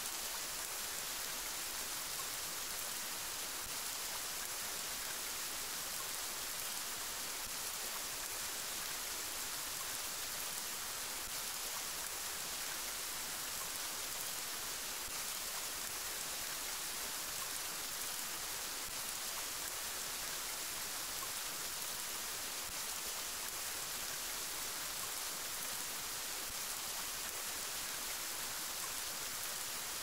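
Steady forest rain: an even, unbroken hiss, brightest in the high range, with no single drops, thunder or other sounds standing out.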